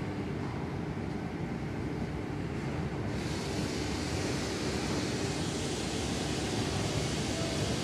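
Steady drone of running factory machinery on a melamine board line, a low hum with a few steady tones. A higher hiss on top is weak at first and comes back about three seconds in.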